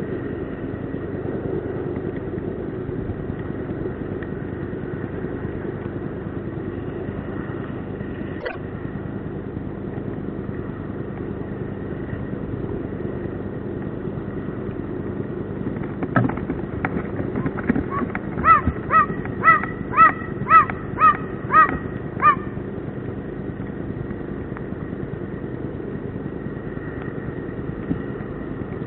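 Eastern imperial eagle calling in a run of about eight short barking calls, about two a second, a little past halfway through. A steady hiss of rain runs underneath.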